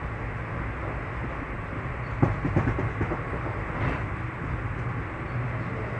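Train running on the track with a steady rumble. A short run of clattering knocks comes about two seconds in.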